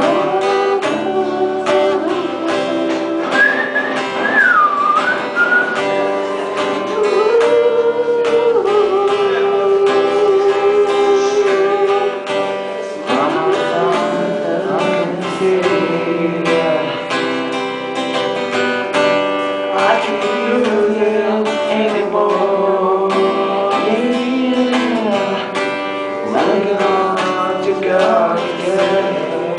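Male voices singing to a strummed acoustic guitar, a live amplified performance with the singing carried through microphones.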